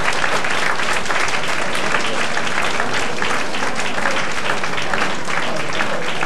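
Audience applauding steadily: many hands clapping at once, an even patter of claps.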